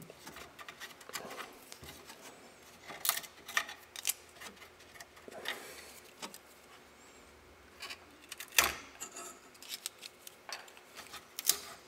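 Freshly printed PLA parts being pried and pulled off a 3D printer's taped build plate and handled: scattered light clicks, scrapes and taps, the sharpest a knock about three-quarters of the way through.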